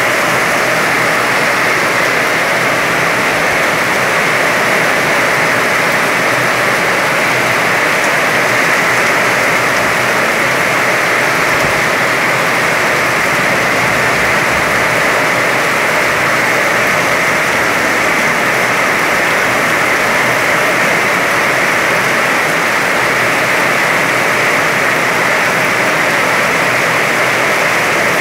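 Heavy rain falling in a steady downpour, an even, unbroken hiss.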